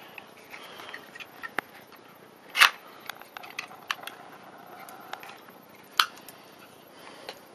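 Scattered sharp clicks and knocks over a low hiss, with two louder ones about two and a half and six seconds in.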